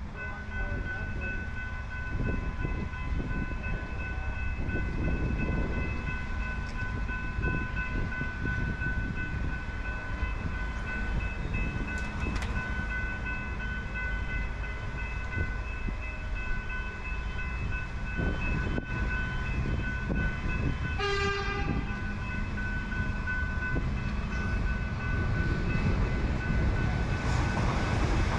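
Railway level crossing warning bells ringing steadily while a suburban electric train approaches, over a low rumble of street noise and wind. Near the end the train's rumble grows louder as it reaches the crossing.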